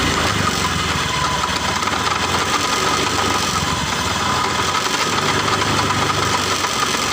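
A Honda BeAT Pop automatic scooter running, with a very rough, rubbing noise from the CVT case. It is the sign of something rubbing inside the CVT drive.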